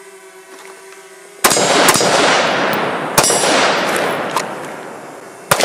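A faint steady hum, then loud sudden bangs about a second and a half in, again near the three-second mark and near the end, each trailing off in a long, slowly fading rush of noise.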